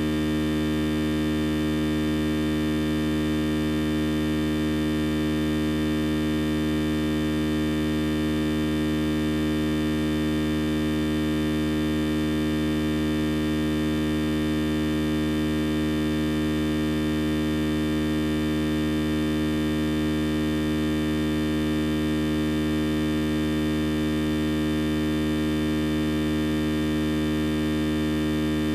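Steady electrical hum and buzz made of many fixed tones, strongest in the low-middle range, holding the same pitch and level without any change.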